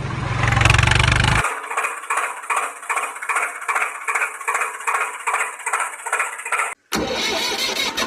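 A vehicle engine sound effect laid over toy footage. It runs deep and loud for about a second and a half, then settles into a chugging rhythm of about three beats a second. It cuts out abruptly near the end before a rougher engine sound starts up again.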